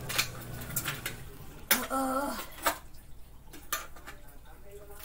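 Metal kitchen utensils and cookware clinking and clattering as they are handled, with several sharp knocks. The loudest knock comes just before two seconds in, followed by a brief pitched sound.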